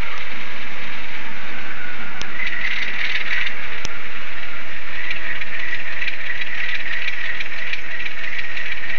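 Re-geared, re-motored Athearn Hustler HO-scale model locomotive chassis running along the track: its small electric motor and gear train whirring steadily, with a rapid light ticking throughout.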